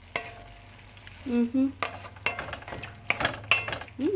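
A metal utensil clinking and scraping in a pan of stewed string beans (adobong sitaw) cooking on the stove, in sharp scattered clicks. About a second and a half in, a person gives a short two-note hum, and another short hum comes near the end.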